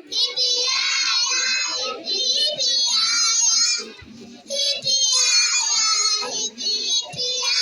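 A child singing in a high, wavering voice, in long held phrases with short breaks between them.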